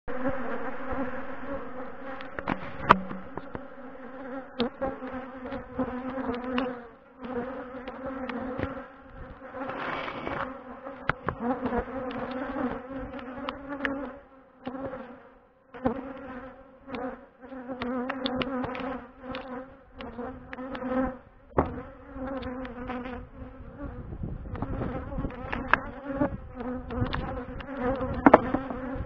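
Honeybees buzzing in numbers around an open hive as honey frames are taken out: a steady, dense hum, with occasional sharp knocks and clicks on top.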